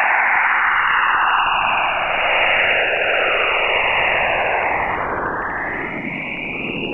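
Eerie sonified space recording: a hissing, whistling noise with several glides sweeping up and down in pitch and crossing one another.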